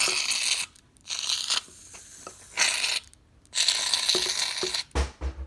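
Aerosol shaving-cream can spraying foam in four hissing, sputtering bursts, the last one the longest; a few low bumps follow near the end.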